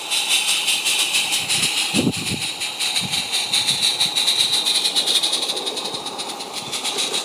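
G-scale live-steam tank locomotive running under steam, a rapid steady chuff of exhaust beats over a constant steam hiss. A few low knocks about two seconds in, and the sound eases slightly as the engine passes and the carriages follow.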